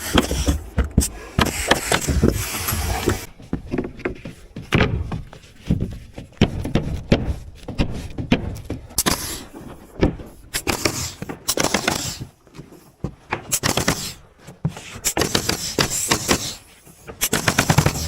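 Pneumatic framing nailer firing nails into lumber in quick irregular runs of sharp bangs, with short pauses between runs.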